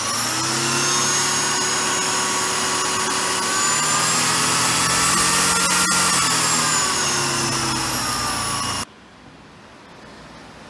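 Corded electric drill driving a homemade wooden lathe, its motor whining with a spinning workpiece, under a speed controller. The pitch rises a little, then falls as the controller turns the speed down, and the sound cuts off about nine seconds in, leaving only low room noise.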